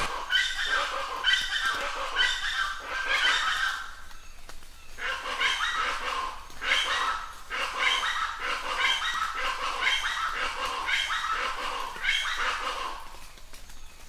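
An animal giving a rapid series of short, repeated calls, about two a second, with a pause of about a second near the middle.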